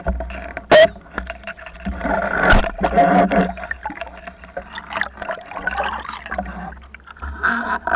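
Underwater sound on a freediving spearfishing dive: water swirling and crackling around the camera with scattered clicks, over a steady hum.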